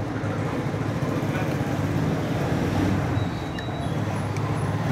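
Steady low rumble of background machine or traffic noise, with a few faint clicks as a screwdriver works the needle-plate screw of an industrial sewing machine near the end.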